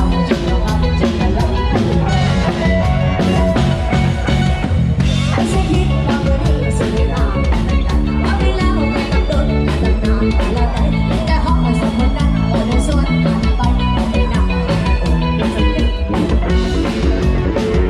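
Lam sing band music: a fast, steady drum-kit beat with electric instruments, played loud without a break.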